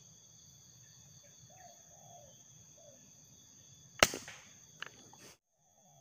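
A single shot from an Uklik bullpup air rifle (a modified Sharp Innova) about four seconds in: one sharp crack with a short ring-out, then a smaller click under a second later. Before it, a steady high insect buzz and faint low bird calls.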